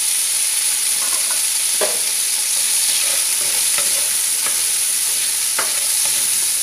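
Diced bacon sizzling steadily in hot oil in an aluminium pot, stirred with a spoon that scrapes and knocks against the pot a few times.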